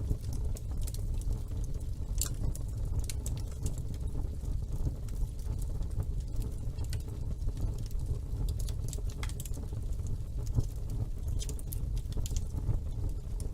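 Wood fire burning in a fireplace: a steady low rumble with irregular, sharp crackles and pops scattered throughout.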